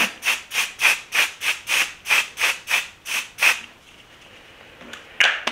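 Pump-mist setting spray (One Size On Till Dawn Mattifying Waterproof) being spritzed onto the face: about a dozen quick hissing sprays, roughly four a second, for about three and a half seconds, then one more short hiss about five seconds in.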